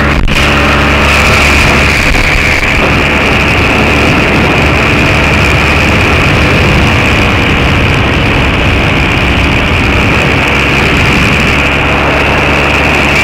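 Engine and propeller of a two-seat ultralight trike running steadily at cruise in flight, a constant loud drone with no change in speed.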